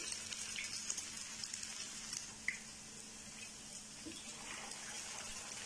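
Shredded potato nests deep-frying in hot oil in a frying pan: a steady sizzle with fine crackling. A short knock about two seconds in.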